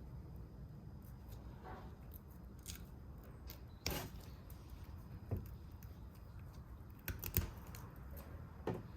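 Faint handling noise with a few short clicks and taps, about five over several seconds, as small brake caliper parts are worked on by hand, over a low steady hum.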